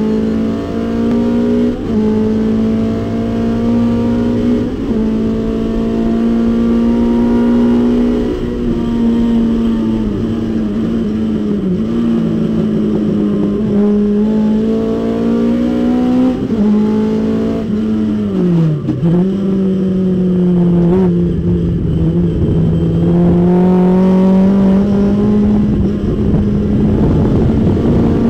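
Datsun 510 race car's engine running at high revs in fifth gear, heard from inside the cabin. Its pitch dips briefly several times as the driver lifts off, falls more deeply about two-thirds of the way through, then climbs steadily again toward the end.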